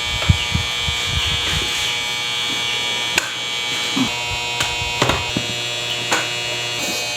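Steady electric buzzing hum from a small motor, with several soft low thumps in the first second or so and a few sharp clicks later on.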